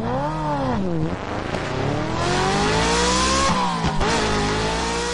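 Car engine revving and accelerating. A quick blip rises and falls in the first second, then the pitch climbs steadily; about four seconds in it drops briefly, as at an upshift, and climbs again.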